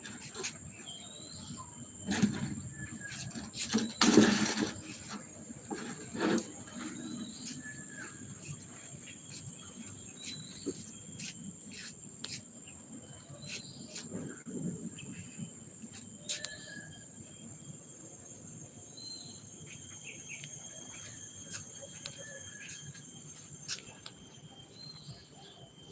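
Outdoor ambience: a steady high-pitched insect drone with short bird chirps scattered every few seconds. In the first seven seconds there are a few knocks and rustles, the loudest a brief burst about four seconds in.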